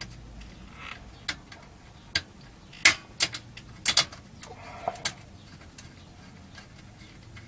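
A screw being screwed down by hand into the metal chassis of a Macintosh 12-inch RGB monitor, fixing a wire clip: about half a dozen sharp separate metal clicks and knocks spread over the first five seconds, with small scrapes of tool and parts.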